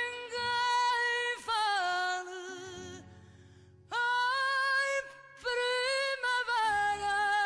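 Music: a woman singing long held notes with vibrato over an instrumental accompaniment, with a pause of about a second midway.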